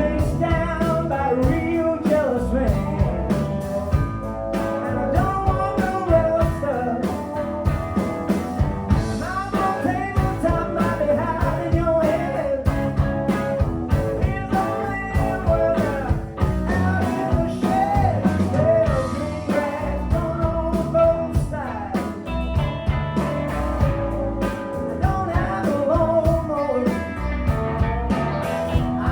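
Live band playing a blues-rock song, with drums keeping a steady beat under a melodic lead line that bends in pitch.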